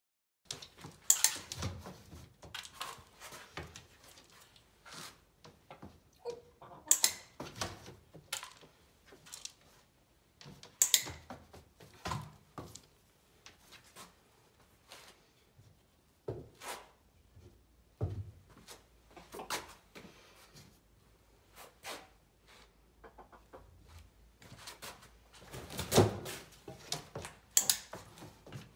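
Scattered sharp clicks and soft knocks and thumps while a hen is clicker-trained on a sheet-covered table: the snap of a handheld training clicker a few times, with bumps from the hen being handled and set down and a plastic treat cup moved about. The loudest is a thump a little before the end.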